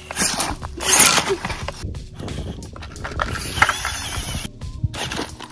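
Radio-controlled rock crawler working over rock: irregular clicking and scraping from its drivetrain, tyres and chassis against stone, loudest about a second in.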